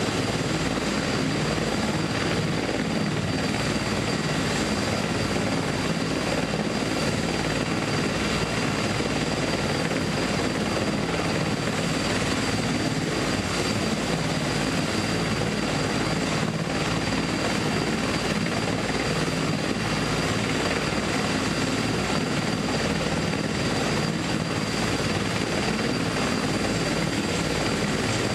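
Steady, unchanging mechanical drone with a thin constant high whine over it, heard from inside a stationary car's cabin.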